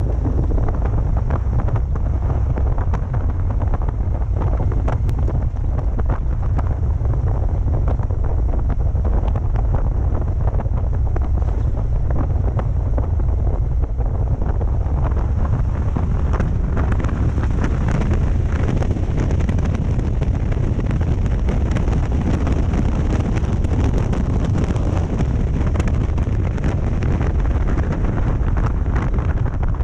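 Steady wind buffeting the microphone of a camera on a Harley-Davidson Road King at road speed, with the low rumble of the motorcycle's V-twin engine underneath.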